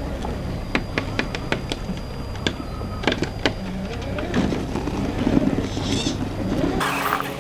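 Scale RC rock crawlers climbing over rock: their electric motors and geared drivetrains whir low and steady while the tyres crunch and click over stones, with many sharp clicks in the first half. A short rush of hiss comes near the end.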